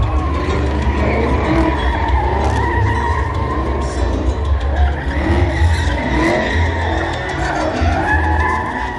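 Two Chevrolet Camaro SS V8 engines running at high revs while their rear tyres squeal continuously, spinning donuts in tandem.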